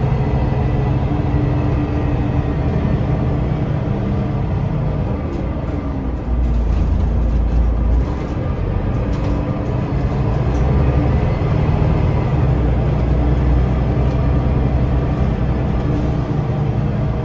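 Scania L94UB bus's DC9 five-cylinder diesel engine running under way, heard from inside the cabin, with a steady low rumble. The engine note drops in pitch about five seconds in, and the deep rumble swells twice.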